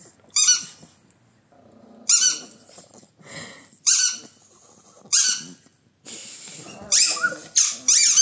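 A squeaky toy ball squeezed in short, high-pitched squeaks, about six of them spaced a second or two apart and coming quicker near the end. A dog's voice joins in near the end.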